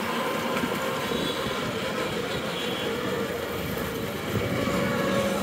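Ride inside a moving cycle rickshaw: a steady rattle of the rickshaw's frame and wheels rolling over the street, mixed with the running of passing battery auto-rickshaws and rickshaws.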